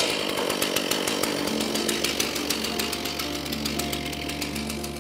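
Gas chainsaw on a chainsaw mill, running at speed. Background music comes in about halfway through and the saw fades under it.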